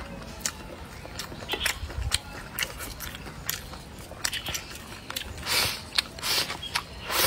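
A person chewing and smacking their lips while eating braised pork ribs and rice: irregular wet smacks and clicks, a few of them louder past the middle.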